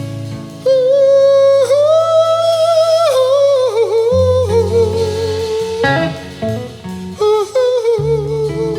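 Live swamp-gospel performance of a spiritual: a voice sings long held, wavering notes with slides in pitch, with no clear words, over a plucked guitar accompaniment.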